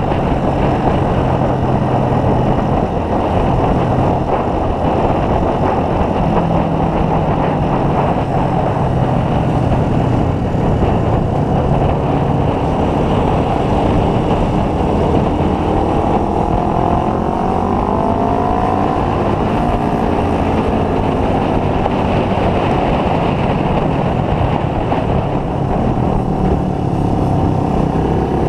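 Motorcycle engine running at road speed under a steady rush of noise, its pitch rising and falling a few times around the middle.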